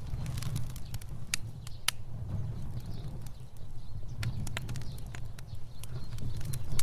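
Fire burning: a steady low rumble of flame with irregular sharp crackles and pops scattered throughout.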